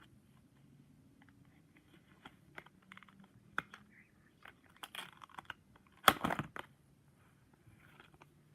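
Small clicks and taps from fidget spinners being handled, with a louder clatter about six seconds in.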